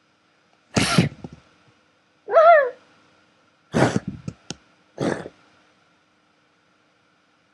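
Sneezes: a sharp sneeze about a second in, a short warbling squeal at about two and a half seconds, then two more sneezes about a second apart.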